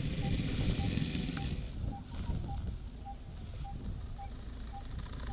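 Aerosol wound spray hissing onto the injured elephant's leg: one long spray of nearly two seconds, then a short burst. Faint high bird chirps and a soft pip repeating about every half-second sit underneath.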